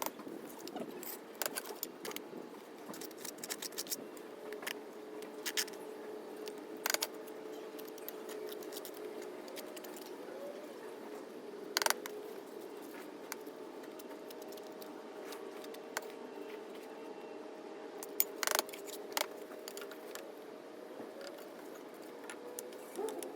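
Scattered clicks and metallic taps of a steel trowel against brick and mortar while laying a row of bricks, with the sharpest taps about twelve seconds in and again near eighteen seconds, over a faint steady hum.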